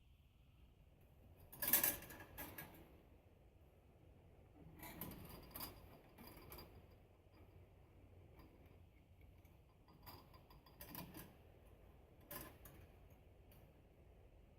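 Scattered metal clinks, clicks and knocks of hand tools and bandsaw parts being worked on during an adjustment, the loudest knock about two seconds in and little clusters of clicks around five to seven and ten to twelve seconds.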